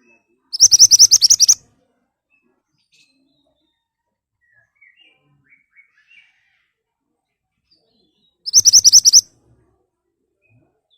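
Mantenan (pied bushchat) singing: two loud bursts of fast, sharp, evenly repeated high notes, about ten a second, the first near the start and the second near the end, with a few faint soft chirps in between.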